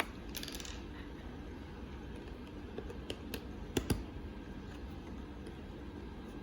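A few light clicks and taps, the loudest just before four seconds in, over a steady low hum: multimeter test probes being set against the terminals of a magnetic contactor.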